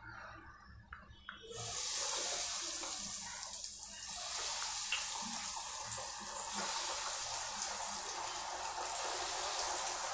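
Breadcrumb-coated potato cutlets deep-frying in hot oil in a kadhai. After a quiet start with a few faint clicks, a steady sizzle sets in suddenly about a second and a half in as the cutlets go into the oil, and it carries on evenly.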